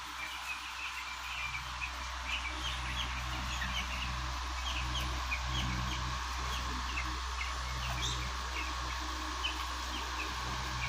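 A flock of twelve-day-old chicks, heat-stressed, peeping: many short, high chirps overlapping irregularly over a steady low hum.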